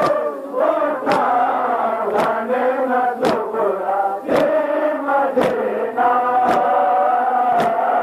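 A crowd of men chanting a mourning lament in unison, with sharp hand slaps on bare chests (matam) landing together about once a second.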